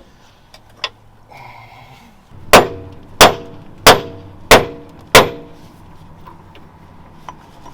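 Five hard hammer blows on steel front-suspension parts, about two-thirds of a second apart, each ringing briefly, as a stuck joint is knocked loose.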